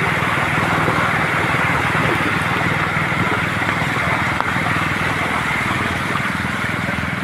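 Motorcycle engine running steadily while the bike is ridden through shallow floodwater, with a steady rushing noise over it.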